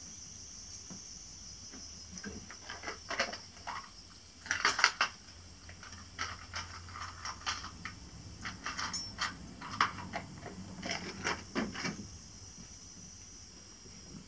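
Irregular small clicks, knocks and clatters of objects being handled close by, loudest about five seconds in, over the steady high chirring of crickets.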